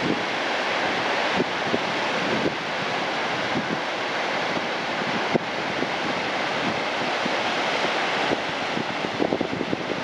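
Surf breaking and washing up over a cobble beach: a steady rush of water, with wind buffeting the microphone in short bumps, more often near the end.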